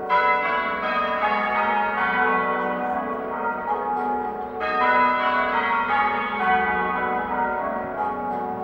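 Half-muffled change ringing on church tower bells during a quarter peal: one stroke of each bell rings open and the next is damped by a leather muffle on the clapper. The open and muffled rows alternate, a brighter row starting at once and another about four and a half seconds in. Half-muffled ringing is the traditional sound of mourning and remembrance.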